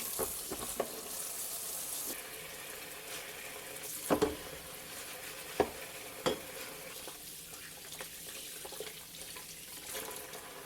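Old steel wrenches being washed in warm soapy water: a steady hiss of water and washing, with a few sharp metal clinks about four to six seconds in.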